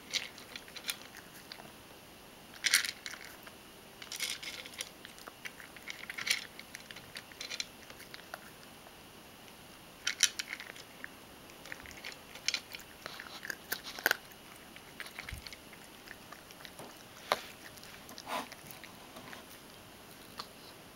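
Ragdoll cat eating dry kibble, crunching the pieces in irregular bursts with short gaps of softer chewing between.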